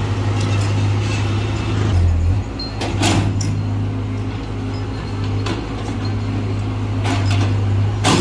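Sumitomo mini excavator's diesel engine running steadily as it works, with a few sharp knocks from the digging, the loudest about three seconds in and at the end.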